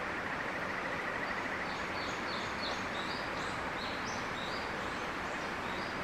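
A bird calls a run of short, high chirping notes that jump about in pitch, starting about two seconds in, over a steady hiss. A faint fast trill is heard in the first second and a half.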